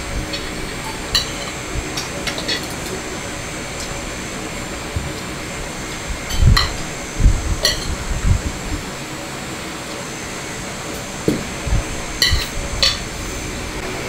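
A metal spoon clinking lightly against a plate now and then, with a few dull thumps in the middle, over steady background noise.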